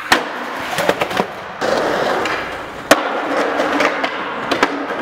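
Skateboard wheels rolling on concrete and asphalt, with sharp cracks of the board striking the ground as tricks are popped and bailed. There are a few quick cracks in the first second or so, the loudest about three seconds in, and two more near the end.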